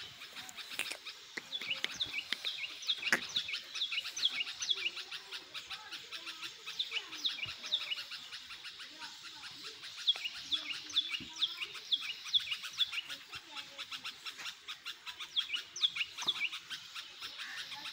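Birds chirping: runs of quick, high, downward-sliding chirps several seconds long, coming three times with short pauses between.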